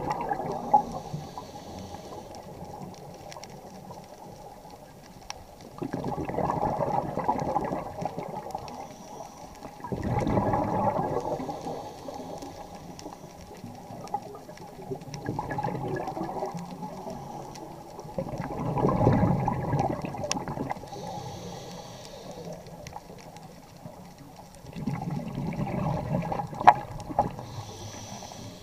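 Scuba diver breathing through a regulator underwater: about five rushes of exhaled bubbles, each about two seconds long and coming every four to six seconds, with a faint hiss between them.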